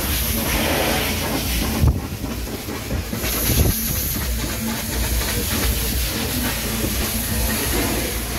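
A wash mitt scrubbing thick foam over a car's body panels, over a steady low machine hum and hiss. There are two soft knocks, about two and three and a half seconds in.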